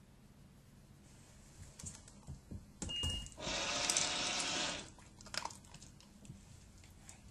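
Treat & Train remote treat dispenser gives one short beep, then whirs and rattles for about a second and a half as it dispenses treats, the reward for the dog touching the hit-it board. Small clicks follow.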